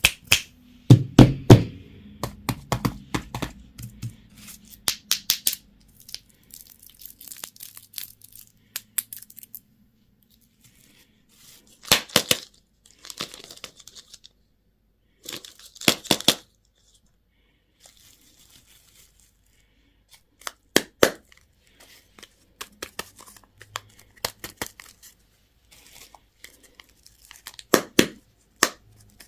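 Plastic candy and toy packaging being torn open and crinkled in short bursts of sharp crackling and tearing, separated by quiet pauses.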